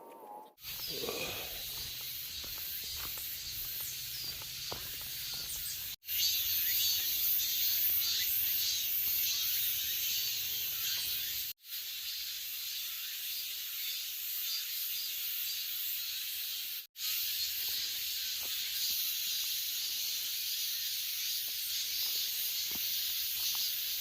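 Steady high-pitched outdoor hiss with a faint low rumble, broken three times by brief sudden dropouts where short clips are joined.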